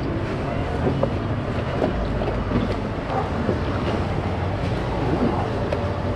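Steady street noise: a low traffic or engine rumble mixed with wind on the microphone, with a few faint clicks.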